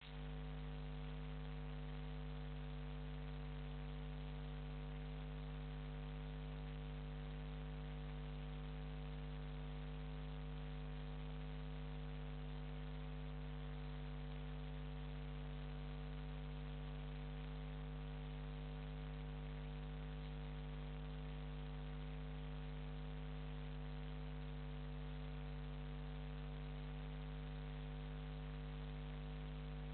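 Steady electrical mains hum, a low 50 Hz buzz with its overtones, over a constant hiss from the recording's own circuitry. It does not change at all as the narrowboat passes.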